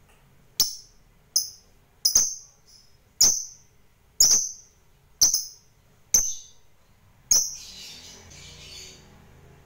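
Lovebird giving short, sharp, high-pitched chirps, about one a second, eight in all, then a brief stretch of rougher, quieter chatter near the end.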